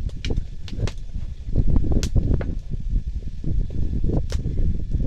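A wooden cooking stick stirring and pressing stiff ugali (maize-flour porridge) in a metal pot. It makes irregular low thuds and scrapes, with sharp knocks against the pot, the clearest about two seconds in and again past four seconds.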